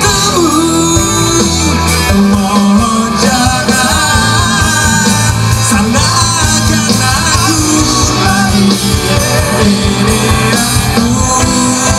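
Live rock band playing with electric guitar, bass guitar, drums and keyboards, with a male voice singing over it.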